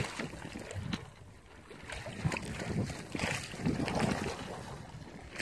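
River water splashing and lapping at the shore, with wind gusting on the phone's microphone, as a hooked fish thrashes at the surface; the noise swells unevenly, loudest about two and three to four seconds in.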